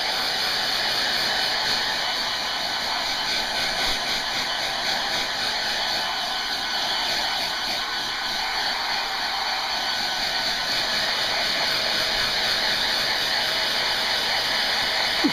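Handheld hair dryer running steadily: an even rush of blown air that holds at the same level without a break.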